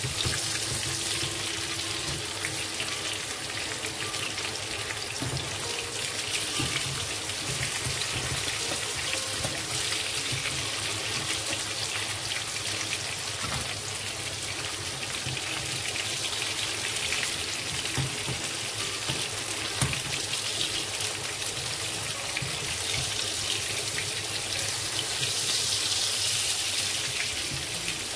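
Tomatoes frying in oil in a small pan: a steady sizzle with fine crackles.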